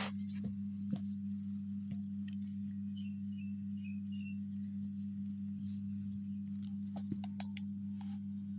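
A steady low hum with a few faint clicks, and a brief faint high chirping about three seconds in.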